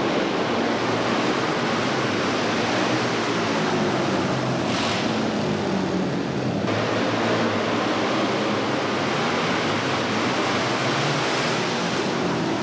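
A field of flat-track racing motorcycles running together as a pack, a dense, steady engine din heard through a hissy old camcorder recording, brightening briefly about five seconds in.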